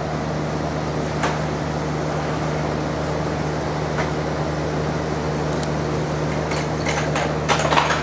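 Friedrich packaged terminal air conditioner running in cool mode with its fan on high: a steady hum. A few short clicks and rattles come near the end.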